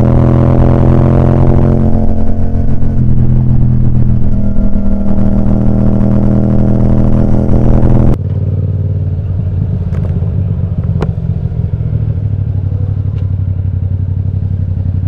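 2018 Yamaha MT-07's parallel-twin engine running at a steady pitch through an Akrapovic titanium exhaust. About eight seconds in it cuts abruptly to a quieter, lower steady engine note, with a few sharp clicks.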